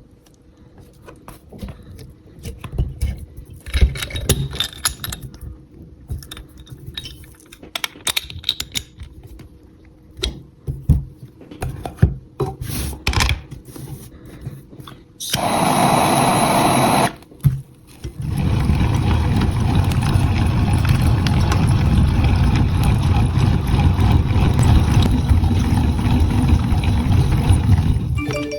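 Clicks and knocks of handling, then a popcorn maker running with a loud steady whir: a short burst a little past the middle, then running on from about two-thirds of the way through.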